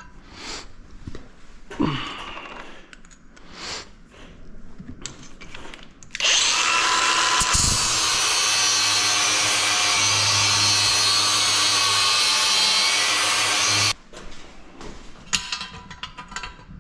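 Handheld power grinder running steadily for about eight seconds, grinding the corners of an aluminium patch piece to fit a hole in the frame; it starts about six seconds in and cuts off sharply near the end. Before it, faint scrapes and clicks of the metal piece being handled.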